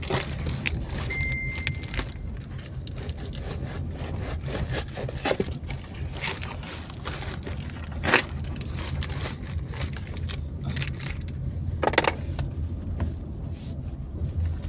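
Knife cutting and prying open a cardboard box: scraping, tearing and crackling of cardboard and paper wrapping, with sharp cracks about eight and twelve seconds in, over a steady low hum.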